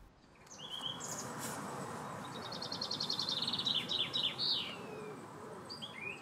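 Birds singing: a short call just after the start, a quick run of rapid high notes in the middle, then a few short falling notes near the end, over a steady background hiss.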